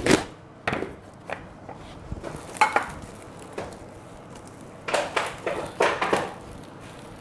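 Kitchen clatter: a sharp knock, then scattered clicks and a few louder clanks of a pot, lid and utensils being handled while cooked sticky rice is moved out of the steamer into a container.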